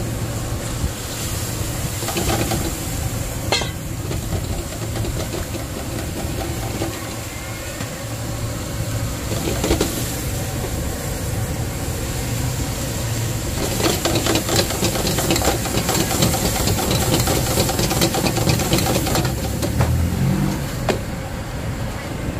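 Clams being stir-fried in a wok over a fierce fire: a steady low roar from the stove and a hissing sizzle, with the metal spatula scraping and clattering against the wok, busiest in the second half.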